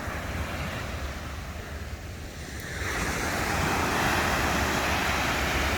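Pacific Ocean surf: waves washing on the beach, swelling louder about three seconds in as a wave breaks and rushes up, with wind rumbling on the microphone.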